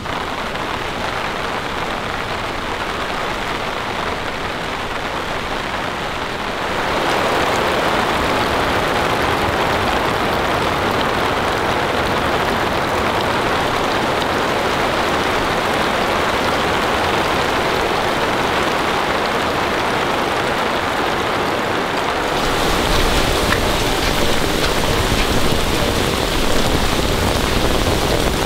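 Heavy rain pouring down steadily, a dense even hiss that grows louder about a quarter of the way in and again, with a deeper rumble, near the end.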